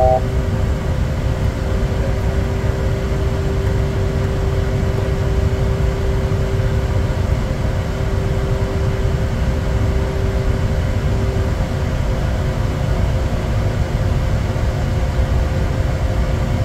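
Steady cockpit noise of a Bombardier Challenger 350 twin-turbofan business jet in flight: a constant rush of air and low rumble, with two faint steady tones, the lower of which fades out about eleven seconds in.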